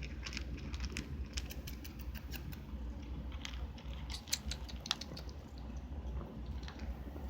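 A cat eating from a dish: a quick, irregular run of small wet clicks from its mouth, lapping and chewing.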